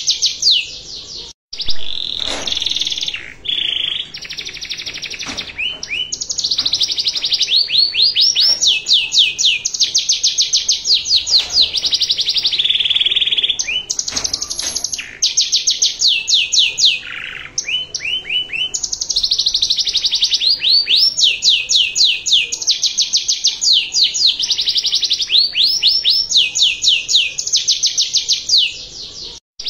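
Domestic canary singing a long, fast song of rapid trills. Each trill is a run of quick, repeated downward-sweeping notes, and the bird passes from one trill straight into the next, with a brief break about a second and a half in. This is the ornate 'cengkok mewah' style of canary song used as a tutor (masteran) recording for young canaries.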